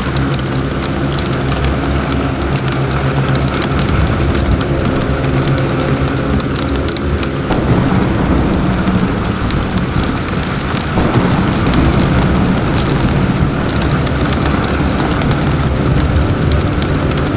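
Heavy rain pelting a car's windshield and roof, heard from inside the cabin as a loud, steady patter of countless drops over the low drone of the car.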